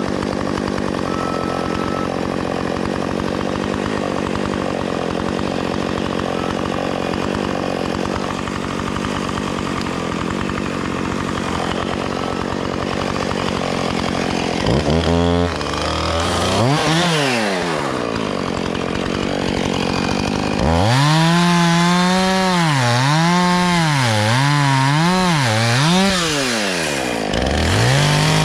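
Chainsaw running steadily for about the first half. It then revs in rises and falls, its pitch sweeping up and down about once a second as it cuts limbs.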